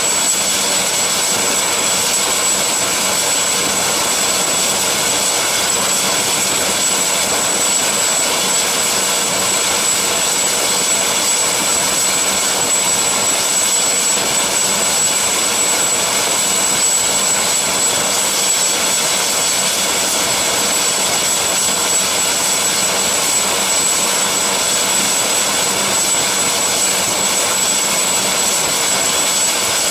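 Twin-turbine helicopter running on the ground with its rotors turning: a steady turbine whine with a constant high-pitched whistle over a rushing rotor noise, unchanging throughout.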